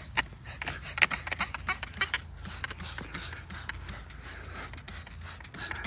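Air leaking from a tractor tire's valve stem through soapy water, crackling with many irregular quick clicks, densest in the first couple of seconds.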